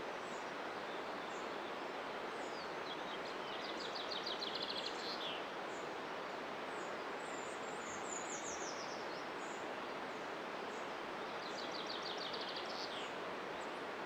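Woodland songbirds singing: three rapid high trills, each ending in a short flourish, with thin high chirps between them, over a steady rushing background.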